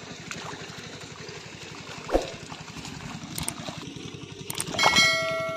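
Wading through a flooded, muddy paddy field: mud and water squelching and splashing, with a thud about two seconds in, over a steady low motor hum. Near the end a held high tone with overtones starts.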